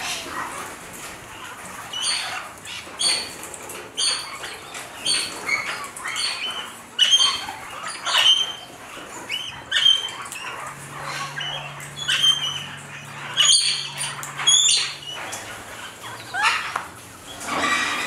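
Australian king parrots calling: short, shrill high calls repeated about once a second. A faint low hum runs underneath for a few seconds in the middle.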